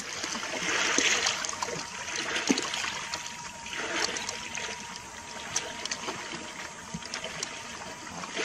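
Small waves lapping and splashing at the water's edge close to the microphone, rising and falling in uneven surges with scattered small clicks.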